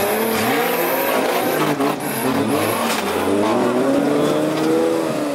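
Off-road buggy engine revving hard, its pitch rising and falling repeatedly as it claws up a steep dirt bank.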